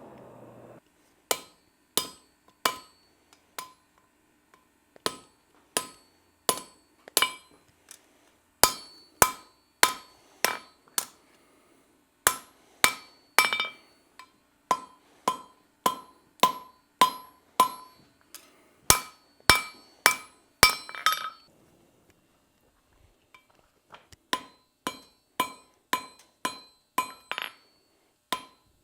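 Blacksmith's hand hammer striking steel on an anvil, each blow ringing, at a steady pace of about one and a half blows a second. The hammering stops for about two seconds roughly three-quarters of the way through, then starts again.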